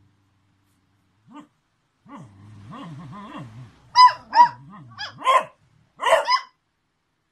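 Beagles growling and barking: a low, wavering growl starts about two seconds in, then five sharp, high-pitched barks near the end.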